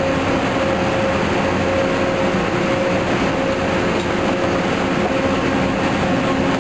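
Drilling rig machinery running loud and steady: a dense engine drone with a constant steady tone over it.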